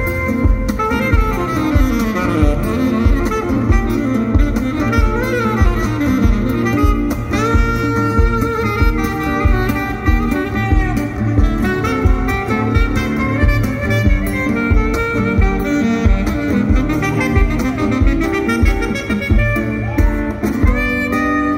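Live band music: a horn melody over guitar and a steady beat.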